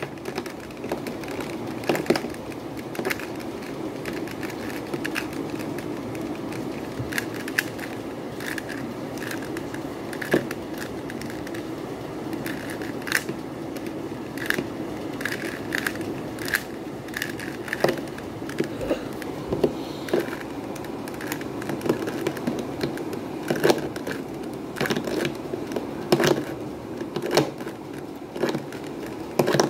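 Plastic 3x3 Rubik's cube being turned by hand over and over, its layers clicking and clacking irregularly, a few clicks a second, over a steady background noise. The turns are repeated left-inverse, up-inverse moves that scramble the cube.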